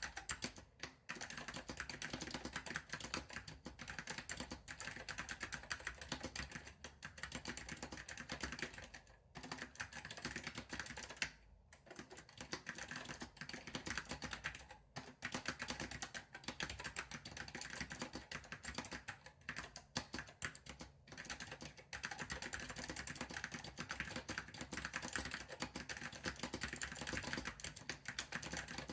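Typing on an Apple M0116 (Apple Standard Keyboard) with Alps SKCM Salmon tactile switches: a fast, continuous run of key clicks, broken by a few short pauses.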